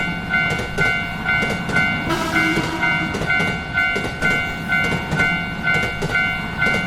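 Japanese level-crossing warning bell ringing its 'kan-kan' tone about twice a second, with the rumble of a train passing underneath and a short extra tone about two seconds in.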